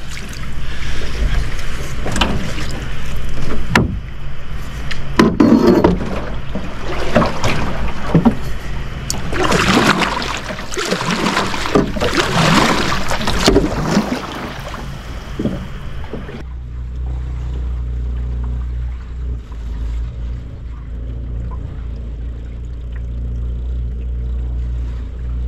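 A 12-foot aluminum jon boat being poled through lily pads and weeds: irregular scraping and swishing of plants along the hull, knocks from the pole and water sloshing. After about two-thirds of the way these give way to a steady low hum.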